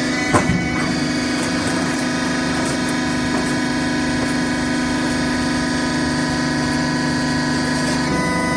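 Hydraulic power unit of a cardboard baling press running steadily, a motor-driven pump giving a constant hum with a whine. A single knock sounds about half a second in, and the pitch of the hum shifts slightly near the end.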